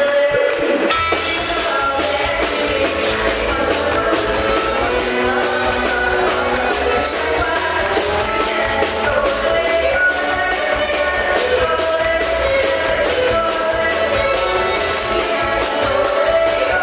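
A woman singing into a microphone with a live band: bass guitar and drums, a steady cymbal beat about twice a second.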